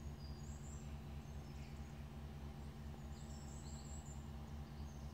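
Small birds singing, with short high chirps and trills coming every second or so, over a steady low hum.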